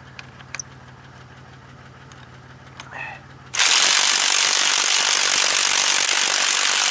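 A car engine idles steadily. About halfway through, an electric impact wrench runs loudly for about three and a half seconds, hammering at the lug nuts of a seized wheel.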